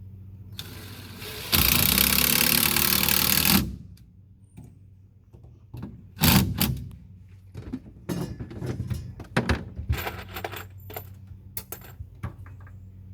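Cordless drill driving a construction screw into an antenna mount, running for about three seconds and speeding up partway through. Then scattered light clinks and knocks of screws and the drill being handled.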